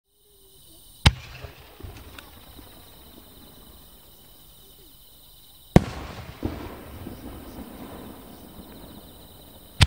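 Aerial firework shells by Nomura Fireworks bursting in the sky. There is a sharp boom about a second in, a louder one just past the middle followed shortly by a smaller bang, and another right at the end. Each boom trails off in a rumbling echo.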